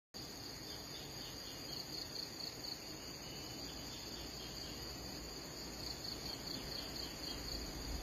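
A steady, high-pitched insect chorus, a fast pulsing buzz, over a low rumble.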